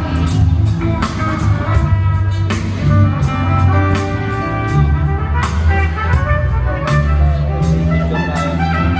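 Rock band playing live without vocals: electric guitar lines over bass and a drum kit keeping a steady beat.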